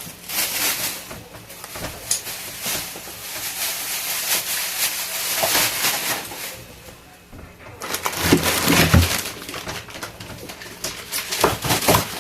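Plastic freezer bags and a grocery bag crinkling and rustling as frozen packs of meat are lifted out of a chest freezer. A few dull knocks of frozen packs come about eight to nine seconds in.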